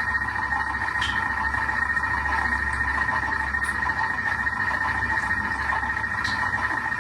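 Kitchen cooking machine's motor running steadily as it stirs fried rice, with a few faint ticks.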